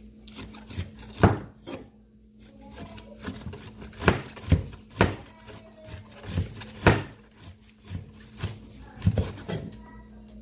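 A large kitchen knife slicing a head of cabbage, the blade cutting through the leaves and knocking on a wooden cutting board in a dozen or so irregular strokes.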